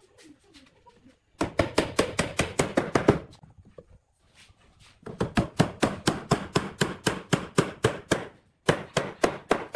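Rapid runs of sharp knocks, about six a second, in three bursts with short pauses between.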